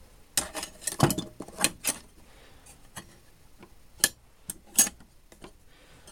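Small steel tools such as machinist's squares clinking and knocking as they are handled in a metal tool box drawer: a cluster of sharp clicks in the first two seconds, then a few single clinks about four and five seconds in.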